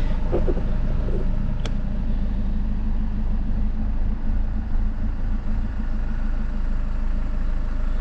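BMW 520d's M47 four-cylinder diesel engine idling roughly, its note wavering for a moment around the middle. The rough idle is the symptom of an air-fuel mixture fault around the EGR valve.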